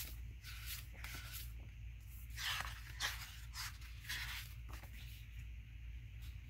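Paper pages of a planner sticker book being flipped: a run of short paper rustles and swishes, a few in the first second and a half and a louder cluster about two and a half to three seconds in.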